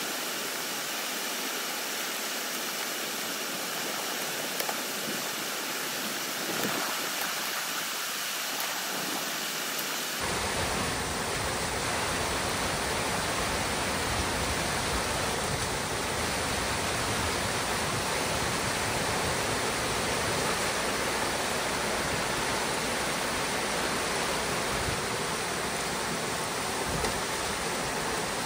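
Water rushing and cascading through a breach opened in a beaver dam, a steady torrent. About ten seconds in the sound becomes fuller and deeper.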